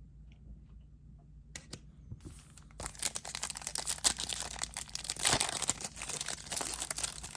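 A foil trading-card pack wrapper being torn open and crinkled, a dense crackling with many small clicks that starts about three seconds in, after two short soft sounds.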